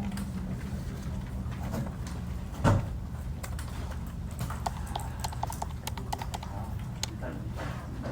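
Computer keyboard typing at a desk: scattered key clicks, with a quick run of keystrokes about five seconds in and one louder knock near the three-second mark, over a steady low hum.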